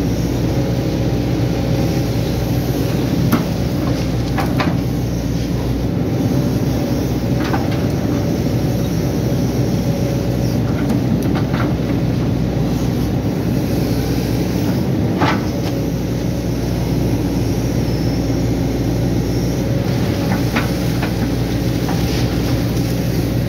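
Hydraulic excavator's diesel engine running steadily under load as the arm and bucket dig and lift wet mud, with a few sharp knocks scattered through.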